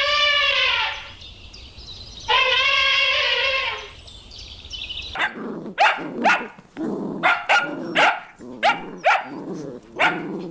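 A sheep bleats twice in long, wavering calls. About five seconds in, a dog starts barking in a rapid run of short barks, two or three a second.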